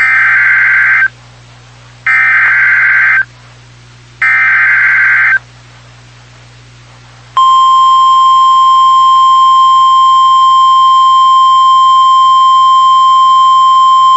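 Emergency Alert System SAME header: three bursts of digital data tones, about a second each and two seconds apart. About seven seconds in, the steady 1050 Hz NOAA Weather Radio alert tone starts and holds. Together they herald a severe thunderstorm warning.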